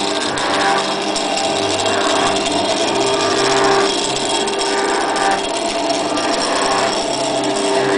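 The newly fitted axis drive motors of a CNC-retrofitted milling machine running through their pulleys and belts on a first test: a steady mechanical whine with held tones that change pitch every second or so as the moves change.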